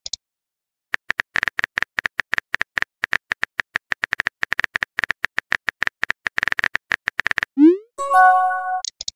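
Rapid clicks of a phone's on-screen keyboard as a text message is typed. Near the end comes a short rising swoosh as the message is sent, followed by a brief chime of several tones.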